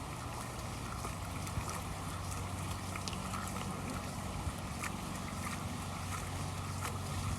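Steady low hum with a hiss of water, and scattered small splashes and knocks as a pool vacuum hose is pushed into the water to prime it.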